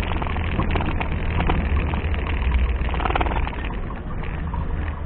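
An off-road 4x4's engine running with a steady low rumble, easing off a little about three and a half seconds in.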